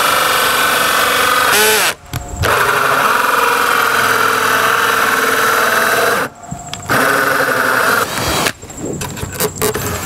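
Cordless drill driving a 2¼-inch hole saw through a 3/4-inch-thick wood board, the motor running with a steady whine. It winds down and stops briefly about two seconds in, stops again about six seconds in, and runs in shorter, broken bursts near the end.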